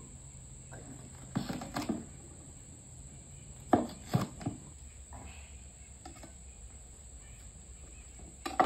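A manual post-hole digger working soil: a few scattered dull knocks and scrapes as the blades are driven in and worked, under a steady high-pitched insect drone.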